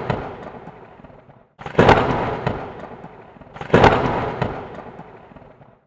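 Thunderclap sound effect: the tail of one clap fading, then two more sharp cracks, each trailing off into a fading rumble and cut off abruptly.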